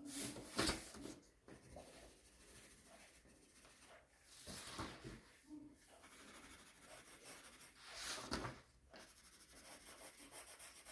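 Pencil shading on paper: faint scratching and rubbing strokes that come in a few clusters, about a second in, around five seconds and again around eight seconds.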